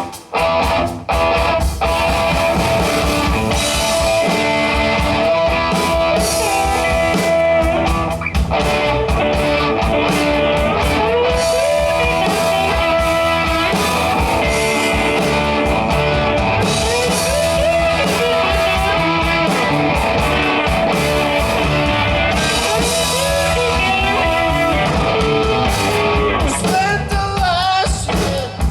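Rock band playing: electric guitar over a drum kit, with singing coming in near the end.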